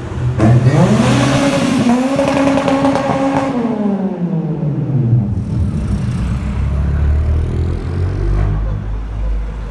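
A car accelerating hard: the engine note starts suddenly and climbs in pitch, holds, then falls away over a couple of seconds as the car drives off. A lower engine rumble from slower traffic follows.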